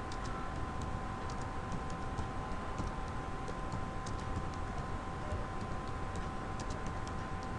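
Computer keyboard typing: short, irregular key clicks, several a second, over a steady background hiss and a faint steady whine.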